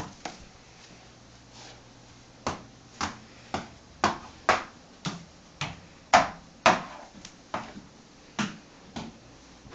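A small plastic Buzz Lightyear toy knocked against a wall and doors over and over, sharp taps about twice a second starting a couple of seconds in.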